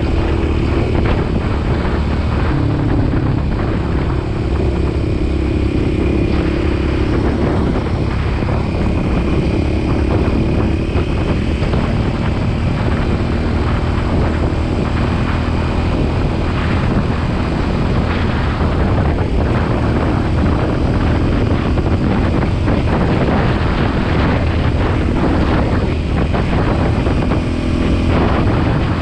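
Motorcycle engine running at a steady cruise, buried in heavy wind noise buffeting the microphone.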